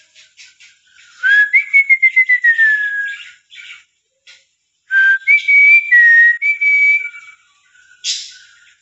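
Two long whistled phrases, each a few clear notes gliding up and down in pitch, with light bird chatter around them and one short harsh lorikeet screech near the end.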